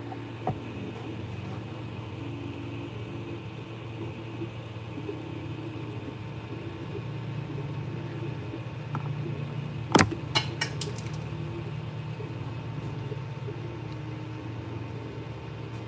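Creality 3D printer printing a first layer: a steady cooling-fan hum under stepper-motor whine that changes pitch in short steps as the print head moves. A handful of sharp clicks come in a quick cluster about ten seconds in, the loudest sound here.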